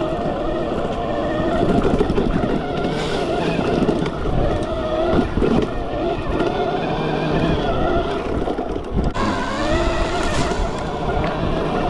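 Arctic Leopard e-bike's electric motor whining under off-road riding, its pitch rising and falling with speed, over a rough rumble of wind and tyres. The whine briefly drops about three-quarters of the way through, then climbs again.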